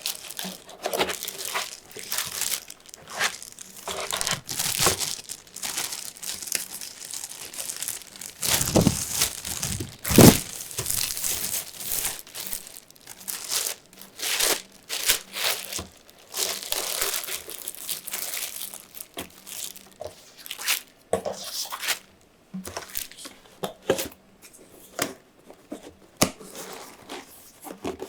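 Packaging being handled: irregular crinkling, rustling and tearing of paper or plastic wrapping, with a couple of heavier knocks about nine and ten seconds in.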